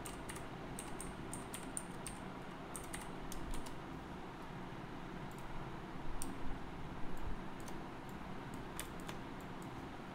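Computer keyboard typing: irregular short runs of key clicks with pauses between them.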